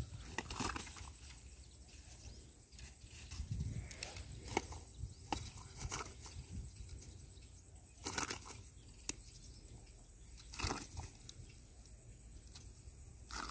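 A landed snakehead thrashing on the grass while being unhooked: irregular flapping slaps and grass rustles, with a sharp click a little past the middle.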